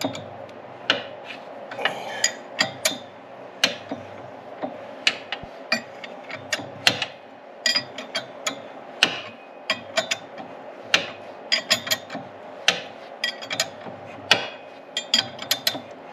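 Irregular sharp metallic clicks and clacks as a Yamaha G2 golf cart engine, rocker cover off, is turned over by hand and its valve gear and tools are handled, over a steady low hum.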